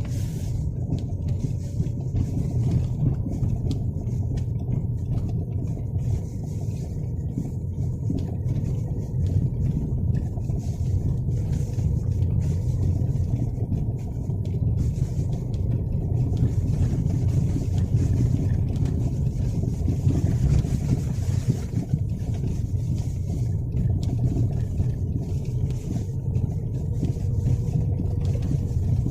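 A 2024 Lada Vesta SW Cross driving over the road, with a steady low rumble and irregular short knocks from the suspension. The owner takes these for the car's first suspension knocks.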